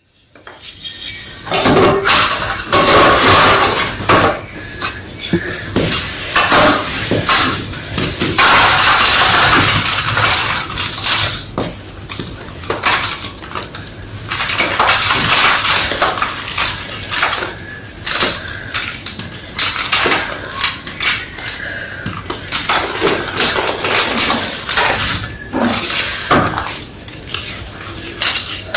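Circle-shaped pieces of gym chalk being crushed, a dense run of crunching and snapping cracks with brief pauses between bursts.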